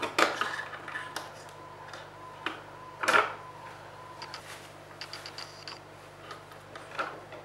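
Handling sounds of an Arduino board with an L293D motor shield and a small CD-ROM stepper motor being moved and set down on a hard tabletop: a few separate clicks and knocks, the loudest a little after three seconds in.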